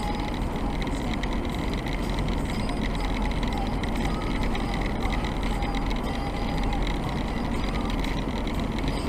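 Steady road and engine noise inside a moving car's cabin: an even rumble and tyre hiss with no sudden changes.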